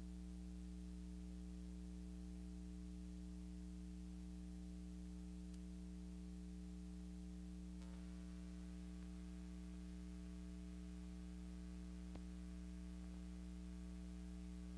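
Steady electrical mains hum with faint hiss on the soundtrack of a silent film transfer. Two faint clicks, one about eight seconds in and one near twelve seconds.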